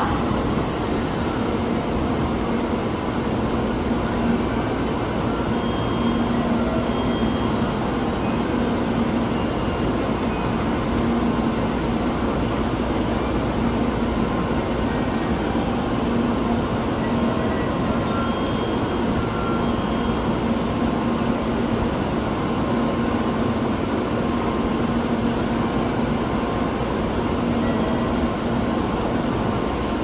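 A Tokaido Shinkansen train standing at the platform: a steady low hum over an even rushing noise, with no change in pitch or level.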